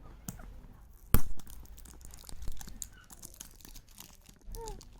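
Packaging being handled and torn open: rustling, crinkling and scattered clicks, with one sharp loud snap about a second in.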